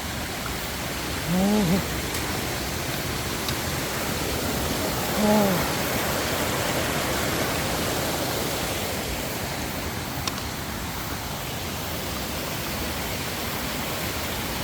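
Mountain stream rushing steadily. A person's voice briefly makes a short sound twice, about a second and a half in and again about five seconds in.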